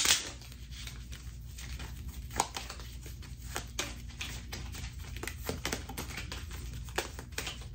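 A small deck of labelled prompt cards being shuffled by hand: irregular quick flicks and clicks of card on card with a soft rustle, one sharper click about two and a half seconds in.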